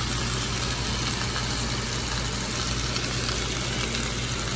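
Steak frying in butter in a stainless steel pan, a steady sizzling hiss over a constant low hum.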